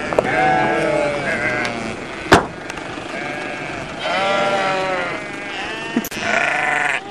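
Sheep bleating: three bouts of wavering calls, some overlapping. A single sharp knock comes about two and a half seconds in.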